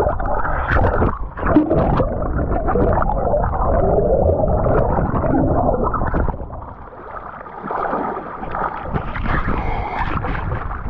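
Turbulent river water gurgling and rushing around a kayak in a whirlpool, over a heavy low rumble that eases for about a second partway through.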